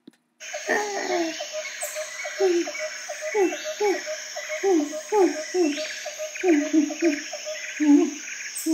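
Wild nature ambience starting suddenly about half a second in: a steady high insect buzz, bird chirps, and a quick run of short, repeated falling calls from animals.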